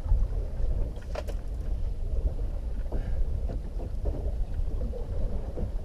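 Wind buffeting the microphone on a small fishing boat at sea, a steady low rumble, with a couple of light knocks about a second in and near three seconds.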